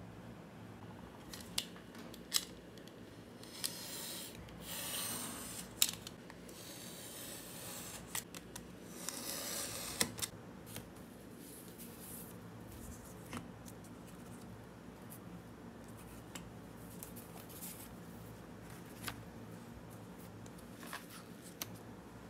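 Paper templates and masking tape handled and pressed onto leather scraps on a cutting mat: two bursts of rustling, about five and ten seconds in, with scattered light taps and clicks.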